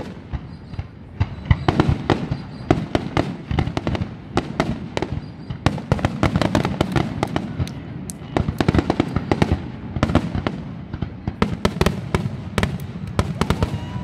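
Aerial fireworks bursting in a continuous barrage: many sharp bangs in quick succession, some nearly overlapping, at times coming in dense clusters.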